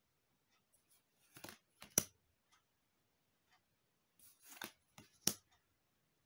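Magic: The Gathering cards slid one by one from the front of a hand-held stack to the back: soft rustles of card stock, each pass ending in a sharp snap, once about two seconds in and again near the end.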